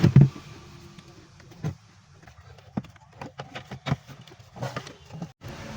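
Irregular clicks and knocks of parts and tools being handled at a repair bench, over a low hum, with a brief gap near the end.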